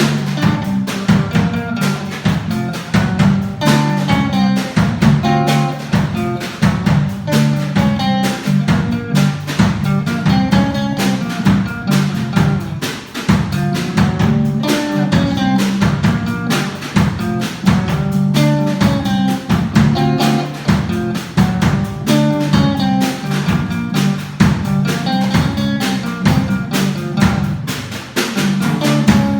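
Instrumental band music: a drum kit keeping a steady beat under guitar and a strong low bass line.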